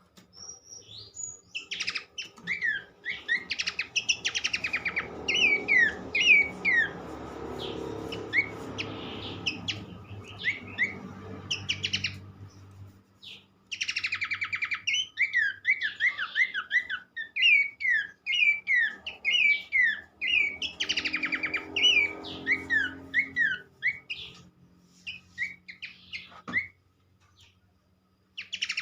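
Babbler birdsong, sung by the pelanduk semak (Horsfield's babbler): bouts of quick, short falling whistles mixed with buzzy rattling calls, broken by brief pauses. A low rumble runs under some of the bouts.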